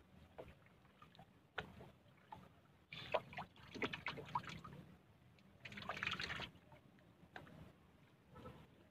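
Water lapping and splashing against the hull of a small paddled boat. It is faint, with scattered small ticks and two short, louder splashy washes about three and six seconds in.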